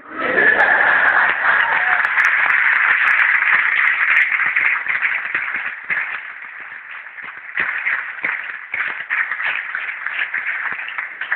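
Audience applause from a banquet hall full of guests: dense and steady for the first five seconds or so, then thinning to scattered, separate claps.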